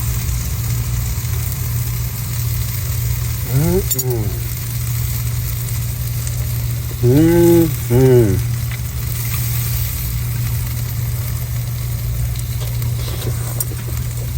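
Salmon frying in a pan, a steady sizzle, over a steady low hum. Two short pitched sounds that rise and fall come through about four seconds in and again about seven seconds in, the second one louder.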